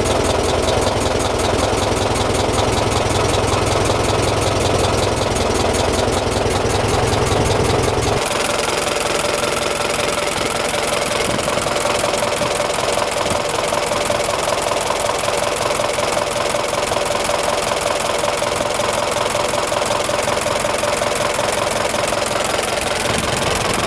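1926 Ford Model TT's four-cylinder flathead engine idling on magneto, its ignition coils clicking. About eight seconds in the deep low rumble drops away and a steady higher hum comes forward.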